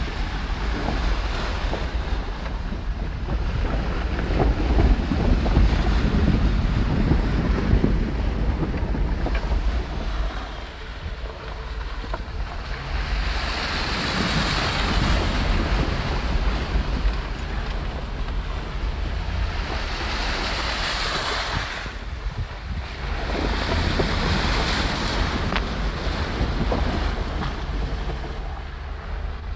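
Chevrolet truck driving slowly through muddy puddles on a dirt trail, heard from inside the cab. The engine and tyres keep up a low rumble, and water sloshes and sprays against the truck in three surges in the second half, with wind noise on the microphone.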